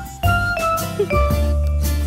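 Background music: high held notes over a low bass line that changes note about once a second.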